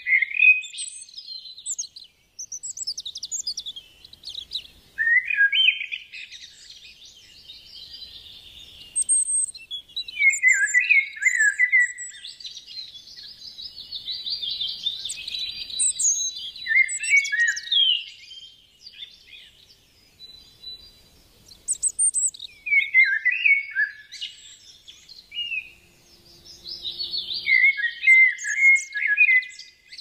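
Wild birds singing: phrases of quick, varied chirps and whistled notes a few seconds long, with short pauses between.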